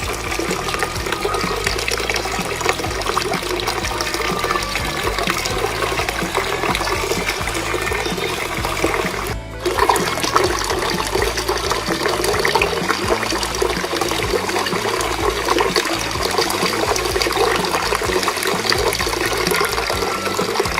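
Water pouring and splashing steadily from a small homemade cement waterfall fountain, with a brief break about nine seconds in.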